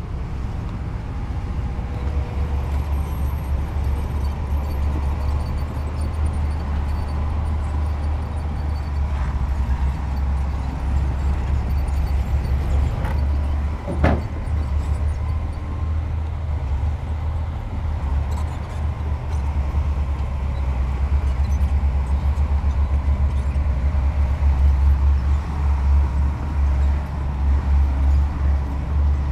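Diesel engines of heavy earthmoving machinery running steadily, with a strong low drone, and one sharp knock about halfway through.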